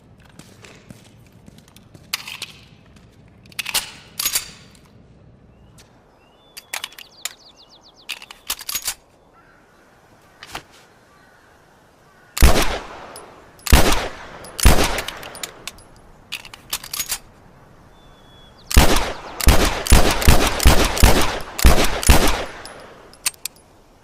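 9mm pistol firing: quieter sharp clicks and pops through the first several seconds, then three loud single shots about a second apart, and after a pause a rapid string of many shots fired in quick succession.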